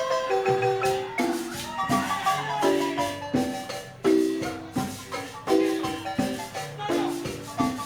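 Marimba playing a rhythmic tune: chords of struck wooden bars that ring briefly, over a bass note that returns about every second and a half.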